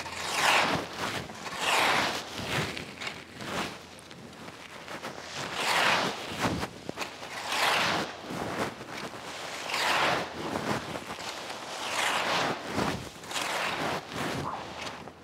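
A rake dragged through dry fallen leaves in long rustling strokes, about one every two seconds.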